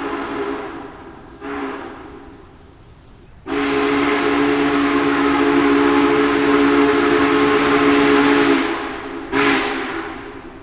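Union Pacific No. 844's steam whistle blowing a chord of several steady notes: a blast ending about a second in, a short blast, a long blast of about five seconds, then another short blast near the end.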